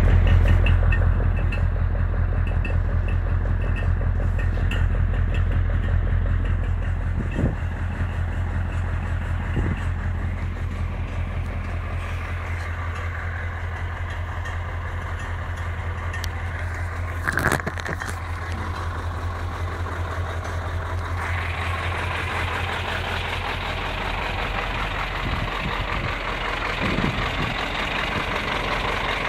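Scania 144G 530 truck's 14-litre V8 diesel idling steadily, with a brief knock about halfway through. The engine sounds brighter and more present in the last third.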